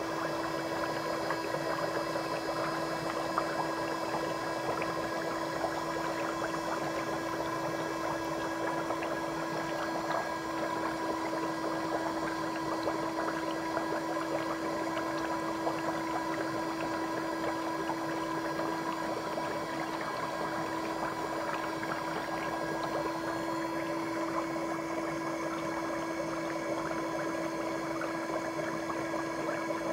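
Electric foot spa running: a steady motor hum with water bubbling and a crackly fizz from the foam around the feet.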